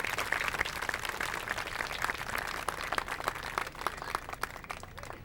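Audience applauding, with many people clapping at once; the clapping thins out near the end.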